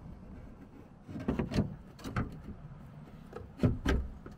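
Plastic tail-light housing of a 2018 Toyota Tacoma knocking and clicking against the truck's bed as it is worked back into its opening by hand: a few scattered knocks, the loudest a little before the end.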